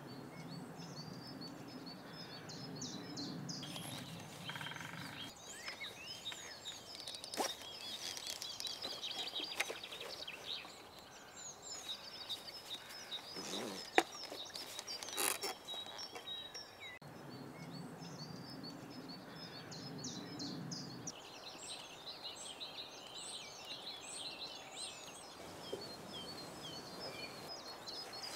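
Small songbirds chirping and trilling outdoors over faint background noise, with a low rumble that comes and goes. A few sharp clicks are heard, the loudest about halfway through.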